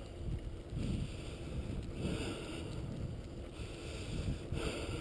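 Wheels of a dog-pulled rig rolling over coarse asphalt in a steady rumble, with wind buffeting the microphone in gusts every second or so.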